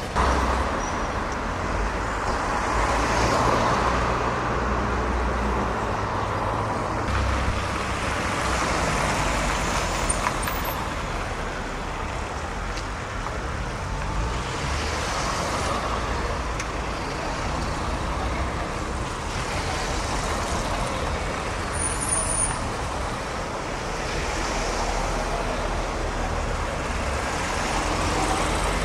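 Steady city street traffic: car engines running and tyres rolling on the road as cars drive past close by.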